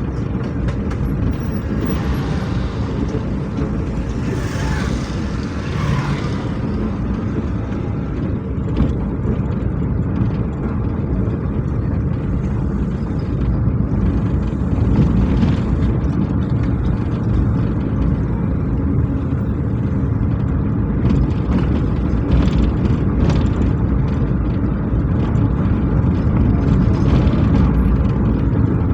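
Heavy motor vehicle engine running with a steady low rumble, the level rising slightly about halfway through.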